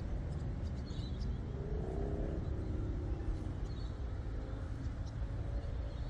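Outdoor ambience: a steady low rumble, with a passing motor vehicle's hum falling in pitch about two seconds in, and a few faint high bird chirps.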